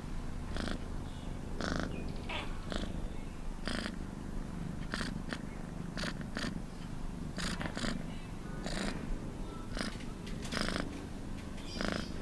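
Domestic cat purring steadily, with a breathy rasp about once a second as it breathes in and out.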